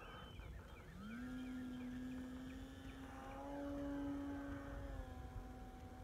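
Small radio-control airplane's motor and propeller throttling up for takeoff: about a second in the buzzing drone rises in pitch, then holds steady as the plane climbs, edging a little higher and louder midway.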